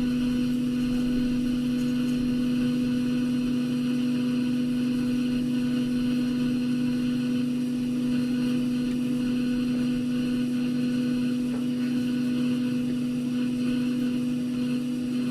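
Steady electric hum of a small fan-driven blower, most likely the hot-air rework station, running evenly at constant speed with a low drone and no changes.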